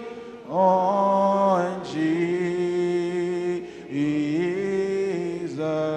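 Unaccompanied congregational singing of a slow gospel hymn: several voices in harmony holding long drawn-out notes on the words "lean… on".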